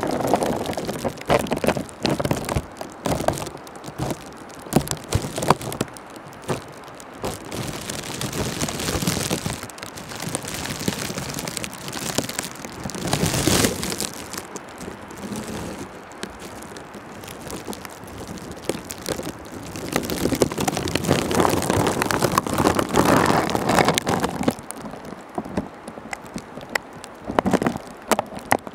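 Gusting wind buffeting the microphone, with a steady crackle of small clicks and pops. It swells about halfway through and again for a few seconds later on.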